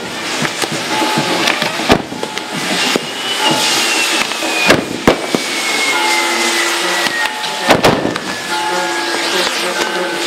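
Fireworks going off: several sharp bangs a couple of seconds apart, with a long thin whistle slowly falling in pitch through the second half. Music plays faintly underneath.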